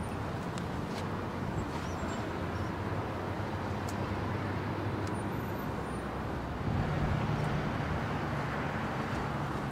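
Steady low motor-vehicle rumble, stepping up slightly in pitch and level about seven seconds in.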